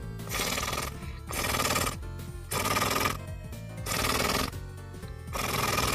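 Beatbox mouth cymbal sounds made with a rolled R, repeated about once a second as hissy rattling bursts, over background music.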